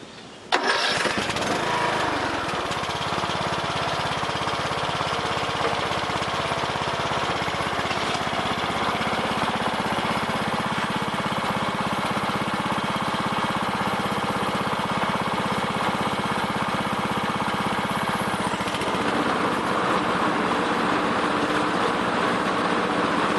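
Huskee LT4200 lawn tractor engine coming in suddenly about half a second in and running steadily, a little louder in the last few seconds.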